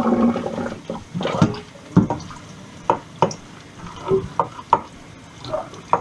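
Kitchen tap running briefly while hands are washed with soap, then a series of sharp knocks and clicks from things being handled.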